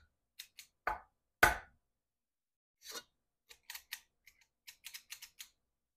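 Metal spring-loaded cookie scoop scraping batter against a stainless steel mixing bowl, with its release lever clicking: a series of short clicks and scrapes, the loudest about a second and a half in, and a quick run of clicks near the end.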